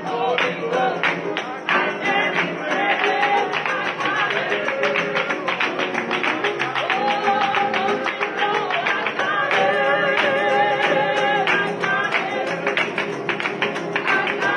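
Upbeat music of rapid, steady guitar strumming, with voices singing over it.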